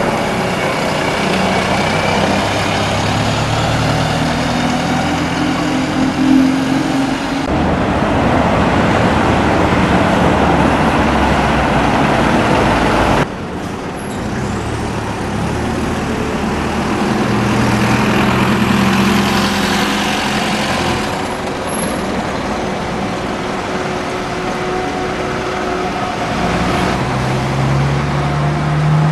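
Diesel bus engines running, their pitch rising and falling as they move. The sound changes abruptly about seven and thirteen seconds in.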